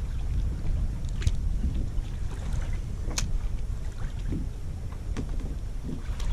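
Wind rumbling on the microphone over water lapping, with a few sharp clicks, the loudest about three seconds in.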